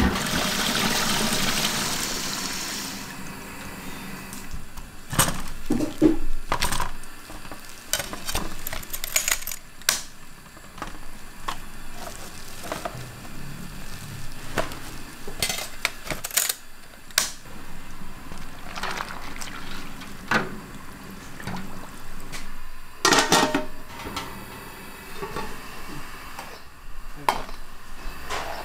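Cookware and dishes clinking and knocking at irregular intervals, after a few seconds of hissing noise at the start.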